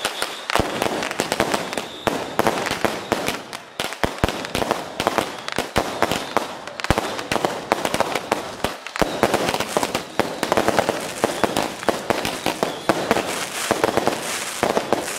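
Strings of firecrackers going off in a fast, continuous crackle of sharp cracks, with a few louder bangs standing out.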